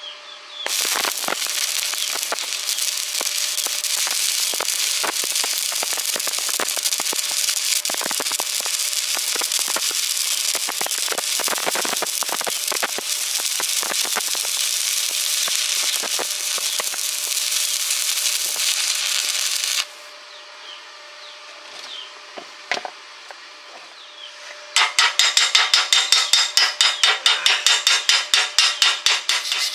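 Electric arc welding: a steady crackling hiss for about nineteen seconds that stops suddenly. After a short pause with a few clicks, a fast, even rhythm of rasping strokes begins near the end, like a hand saw or file working metal.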